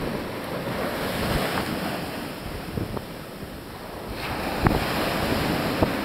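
Ocean surf breaking and washing up a sandy beach, with wind buffeting the microphone. The wash dips in the middle and swells again as a new wave runs up the sand about four seconds in, with a few short knocks near the end.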